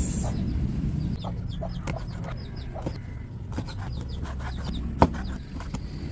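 Knife tapping irregularly on a cutting board as squid is sliced thin, with one sharper knock about five seconds in. Chickens cluck in the background.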